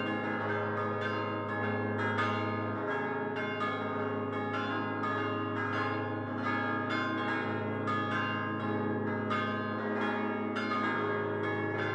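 Solemn full peal of five fixed church bells cast by Prospero Barigozzi in 1928, rung by swinging the clappers by hand. Rapid, overlapping strikes, about three a second, ring over the steady hum of the largest bells.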